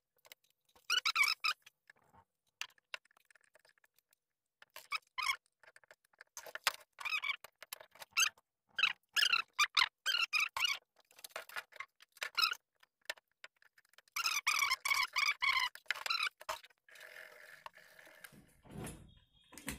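Short bursts of high squeaky chirping that come and go, with silent gaps between them.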